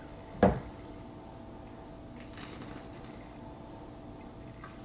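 A single short knock about half a second in, then faint sips and swallows from a plastic shaker bottle, used to wash down a vitamin capsule. A faint steady hum sits underneath.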